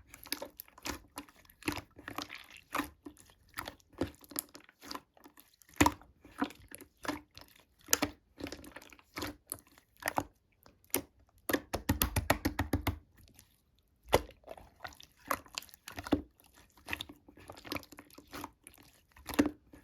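Slime being squished and pressed by hand, giving irregular sticky clicks and small popping air pockets, with a quick run of pops about twelve seconds in.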